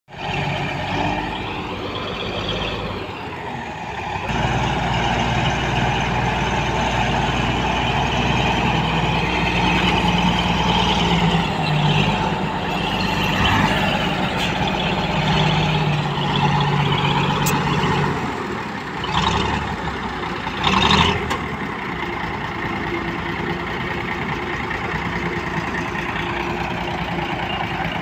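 Komatsu D85A-18 crawler bulldozer's diesel engine running hard as it pushes earth, getting louder about four seconds in and shifting in pitch as the load changes. A short, loud clatter comes about three quarters of the way through.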